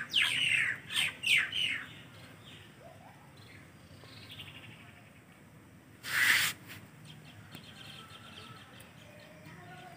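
A bird calling outdoors in a quick run of short, falling chirps that stops about two seconds in. About six seconds in there is one short rush of noise lasting about half a second, over a low background hum.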